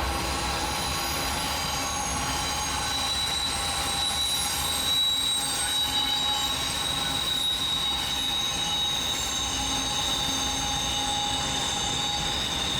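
Wheels of a long Norfolk Southern intermodal freight train squealing steadily over a low rumble of rolling cars. The high, sustained squeal comes from straight wheelsets grinding on the sharp curve.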